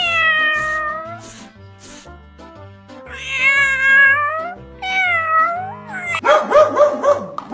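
Domestic cat meowing three times, long drawn-out meows that fall in pitch, over background music with a steady beat. Near the end a quick run of short, rapid barks from a dog begins.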